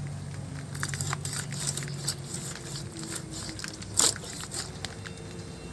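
A fish being cut on a hansua, a fixed curved blade: scattered scraping and crunching cuts through the fish, with one sharper knock about four seconds in.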